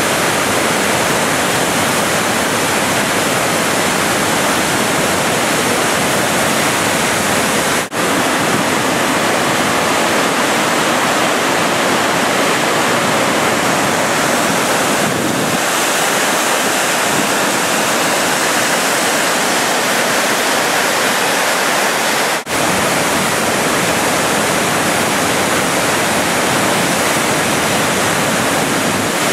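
The Great Falls of the Passaic River, a loud, steady roar of falling water. It breaks off for an instant twice, about 8 and 22 seconds in.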